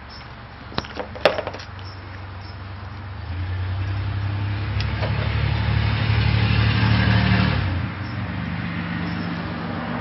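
A few sharp clicks, then a motor running steadily, louder for several seconds before it drops back to a lower, continuing hum.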